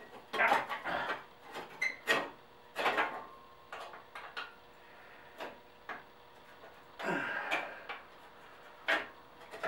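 Open-end wrench clicking and scraping against the radiator mounting bolts and bracket of a 1953 Farmall Cub as it is worked in a tight spot, in short uneven metal clicks with a longer scrape about seven seconds in.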